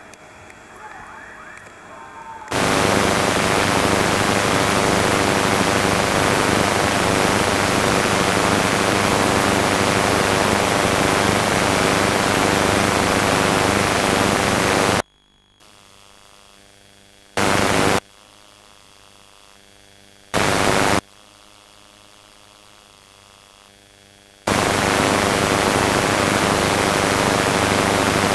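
Loud hiss of static with a hum running through it. It cuts in about two and a half seconds in, drops to a low hum about halfway, returns in two short bursts, and comes back steady near the end.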